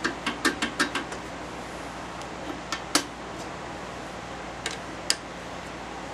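Sharp clicks and knocks as a wood blank's tenon is fitted into a lathe's chuck jaws: a quick run of about seven clicks in the first second, then a few single clicks, over a steady low shop hum.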